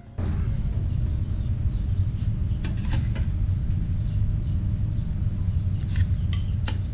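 A metal spoon clinking and scraping against the wok and a ceramic plate as cooked shrimp are dished out, a few sharp clicks around halfway and again near the end, over a steady low rumble.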